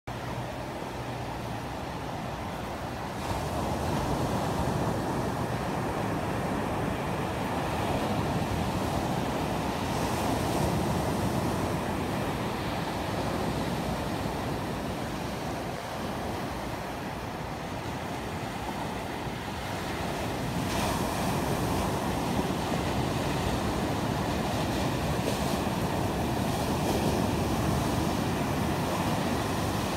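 Ocean surf breaking and washing up the beach, with wind on the microphone. It gets louder about three seconds in and again a little past the twenty-second mark.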